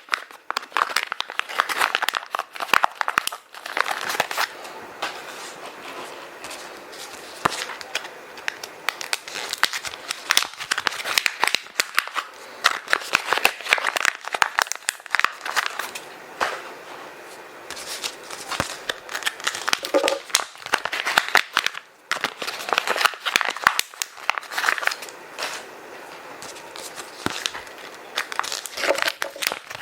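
Kraft paper and plastic sachets being crumpled and stuffed into a zip bag: a dense, irregular crinkling and crackling of paper and plastic, with brief lulls.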